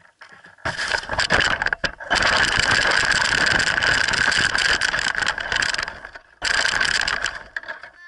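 Remote-control truck's motor whining at speed, heard up close from on board, with the tires tearing through grass and dry leaves. It starts under a second in and runs for about five seconds, cuts out briefly, then surges again for about a second before easing off near the end.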